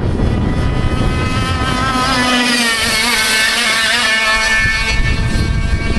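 A 100 cc two-stroke racing kart engine running at speed as the kart passes. Its note is loudest about three seconds in, then wavers and drops in pitch as it moves away. Wind rumbles on the microphone throughout.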